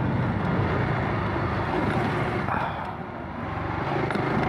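Honda RS150R's single-cylinder four-stroke engine running as the motorcycle rides along, mixed with wind rushing over the microphone. The sound eases off briefly about three seconds in, then rises again.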